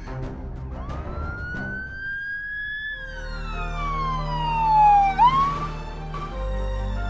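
Ambulance siren wailing: one slow rise and fall in pitch, then turning up again, loudest at the bottom of the fall. It sounds over background music, with drum hits in the first couple of seconds and a deep low drone coming in near the end.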